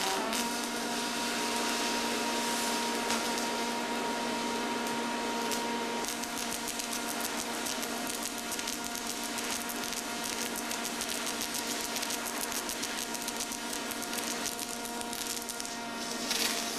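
Robotic arc welding torch running a bead along a steel pipe seam: steady, dense crackling and hissing of the arc, with a steady hum underneath.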